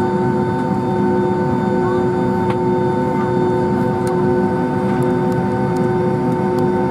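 Cabin noise inside a Boeing 757-200 taxiing, its jet engines running at low taxi power: a steady rumble with several steady whining tones over it.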